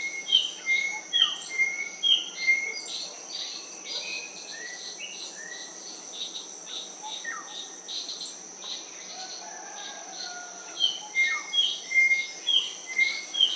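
Wild birds calling over a steady high-pitched insect drone: one bird repeats a short two-note call several times in quick succession at the start and again near the end, with scattered chirps from other birds in between.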